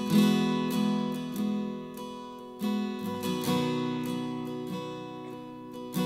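Background music: an acoustic guitar strumming chords, a new strum every second or so.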